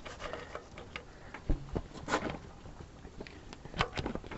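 Irregular metal clicks and light knocks of a wrench working a brass fitting in small turns, with a few duller thuds about one and a half seconds in and near the end.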